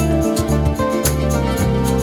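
Background music: held bass and keyboard notes with percussion hits.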